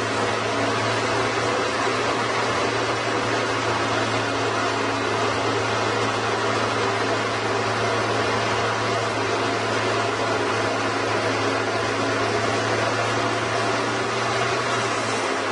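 Machinery running steadily: an unchanging low hum under an even hiss, with no breaks or strokes.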